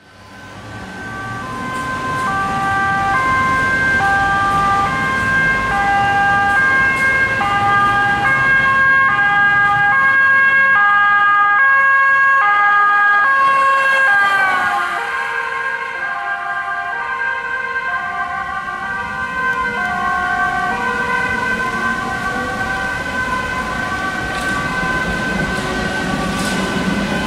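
Emergency response car's two-tone siren alternating between a high and a low note over a steady high tone, loud as the car approaches; about halfway through its pitch drops as the car passes and drives away, with road and engine rumble near the end.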